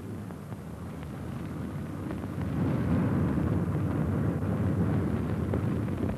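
Drone of the Tu-4 bomber's four radial piston engines in flight: a steady, noisy rumble that grows louder about two and a half seconds in.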